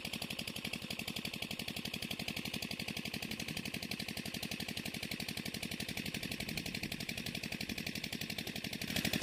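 A small engine running steadily with a fast, even pulse.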